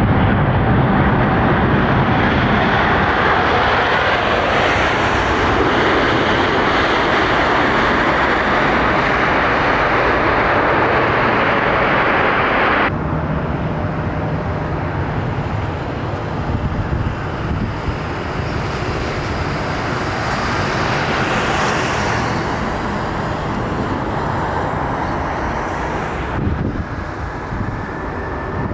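Jet engines of a twin-engine widebody airliner on the runway, a loud steady rush. About halfway through the sound changes suddenly to a somewhat quieter engine rush with a low steady hum underneath.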